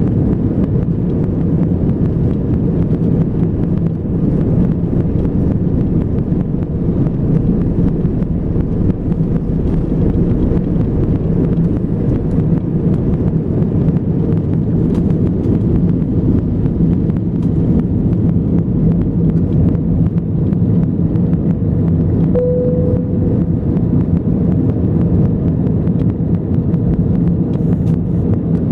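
Airbus A320 jet engines running with a steady low rumble. A brief steady tone sounds once about 22 seconds in.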